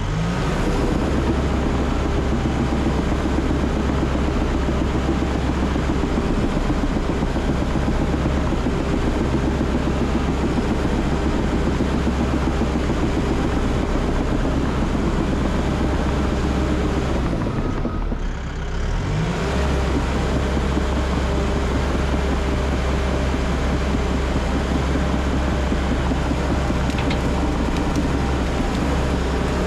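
Cat D3 bulldozer's diesel engine running steadily under load, heard from the operator's seat. About 18 seconds in the revs drop briefly, then climb back up.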